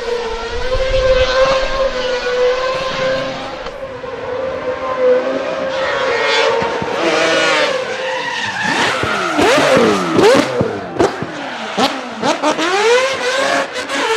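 Mazda RX-7 rotary engine held at a steady pitch for several seconds, then revved up and down in quick repeated rises and falls.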